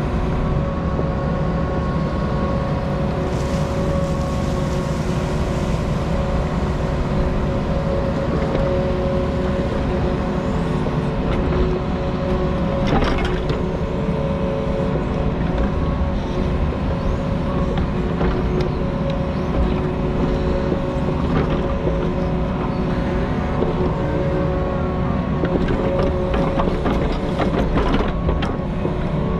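Diesel engine of a compact earthmoving machine running steadily under work, with a steady whine over a low rumble. A sharp knock comes about 13 seconds in, and a few more near the end.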